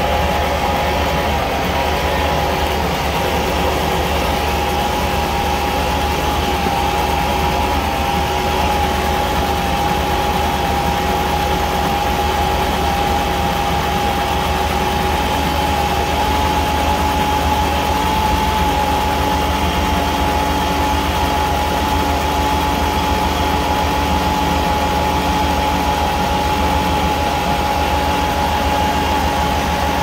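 1998 Chevy C1500 pickup's engine idling steadily, heard from underneath the truck beside the starter, with a steady whine running through the idle.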